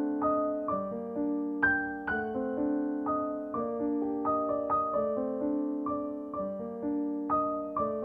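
Background piano music: a steady stream of struck notes and chords, each ringing and fading.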